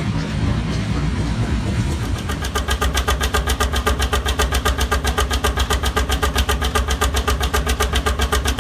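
An engine running: uneven at first, then from about two seconds in settling into an even, rapid beat of about seven pulses a second.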